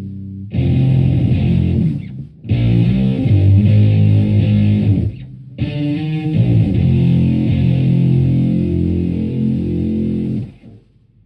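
Electric guitar, a Fender Stratocaster through a Univox Super-Fuzz pedal into a Marshall Plexi amp and 4x12 cabinet, playing loud fuzzed phrases. There are three phrases with two short breaks, and the last is cut off about ten and a half seconds in.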